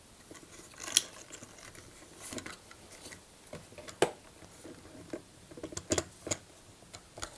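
Plastic cutting disc of a Flymo Microlite mower being handled and fitted onto its drive hub by hand: soft plastic scraping and rubbing, with a few sharp plastic clicks, the loudest about one, four and six seconds in.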